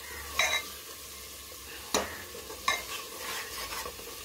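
Steel spoon stirring thick onion-tomato masala in an aluminium pressure cooker, with a few sharp scrapes of the spoon against the pan over a low sizzle of the masala frying on high flame.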